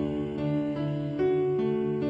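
Instrumental passage of a devotional hymn on keyboard, held chords changing every half second or so.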